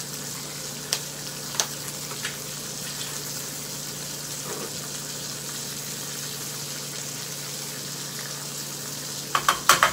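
Bacon frying in a hot pan, a steady sizzle, with a few sharp clicks about a second in and a quick run of clicks and knocks near the end.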